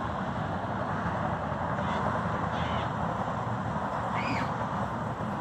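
A bird calls three times, short arched rising-and-falling notes about two, two and a half and four seconds in, over a steady outdoor noise of passing traffic.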